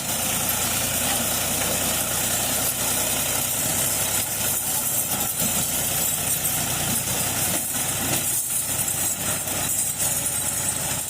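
An engine running steadily and loudly. It cuts in suddenly at the start.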